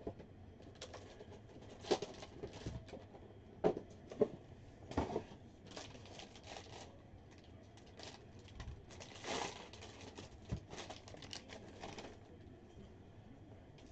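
Plastic and foil trading-card pack wrappers crinkling and rustling in the hands, with a scatter of short sharp crackles and a longer rustle about nine seconds in.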